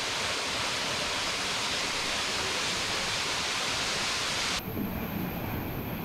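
A steady rushing hiss of noise that cuts off abruptly about four and a half seconds in, leaving a quieter background.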